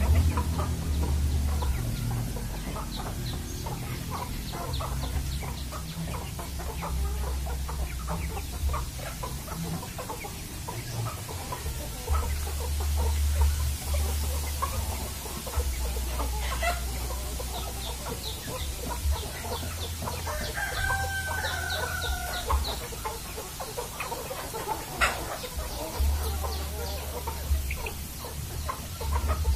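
A flock of free-range village chickens clucking, with many short scattered calls, and a rooster crowing once about twenty seconds in.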